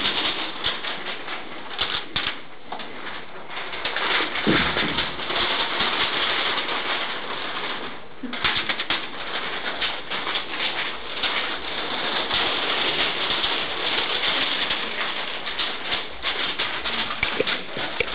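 Many sheets of paper rustling and flapping in a group's hands, with low voices of the group underneath.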